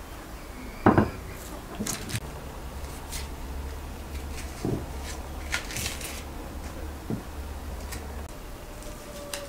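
Serrated knife cutting and scraping the dry, papery skin off an onion: scattered light clicks and crackles, with a louder knock about a second in.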